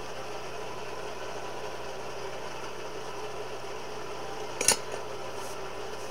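Steady hum of a running blacksmith's forge, with a single sharp metallic clink a little past two-thirds of the way through.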